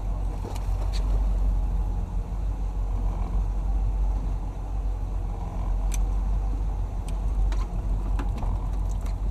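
Fishing boat's engine idling with a steady low rumble, with a few faint clicks from tackle handling.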